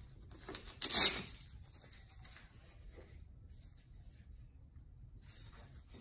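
A strap on a trolling motor's shaft being pulled open with one short, loud rip about a second in, like hook-and-loop tearing apart, followed by faint rustling as the strap is handled.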